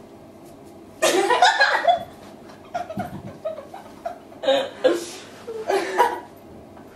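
Two women laughing in fits: quiet for the first second, then a loud burst of laughter, followed by shorter chuckles and bursts of laughter that die away near the end.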